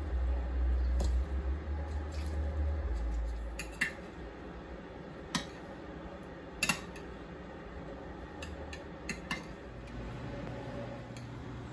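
A low rumble for the first few seconds, then several sharp, scattered clinks of a metal strainer and spoon against a glass dish as chopped vegetables are added and stirred.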